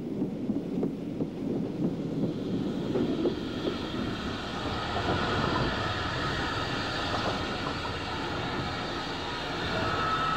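Steam push-pull train of a Midland Railway Johnson 0-4-4 tank engine and coach running on the track: a low rumble, joined from about four seconds in by a steady higher hiss.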